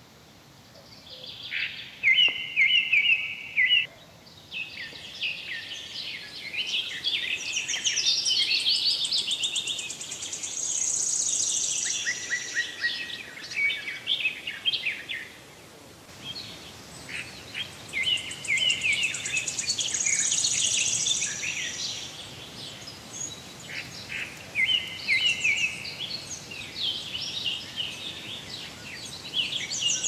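Small birds chirping and trilling in quick, varied phrases, with a high thin note held for about a second twice.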